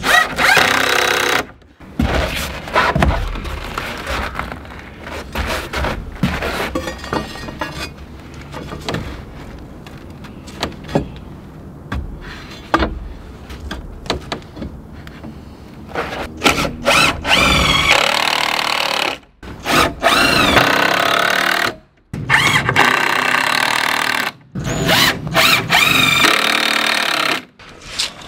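Cordless drill driving screws into wooden 2x4 rails. The motor runs in several spurts, its whine rising and falling, with sharp knocks between the runs.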